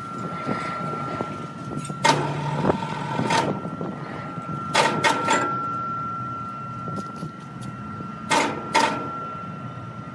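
Electric hoist carrying a heavy timber block, jogged in short bursts from a remote: several sharp, ringing clunks as it starts and stops, two of them close together near the end, over a steady high whine.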